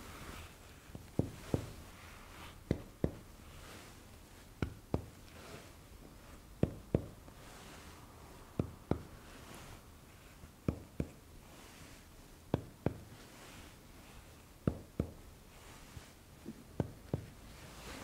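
Chest percussion over the lung fields: a fingertip striking a finger pressed flat on the chest wall. The taps come in pairs about a third of a second apart, a pair roughly every two seconds, each pair at a new spot on the chest.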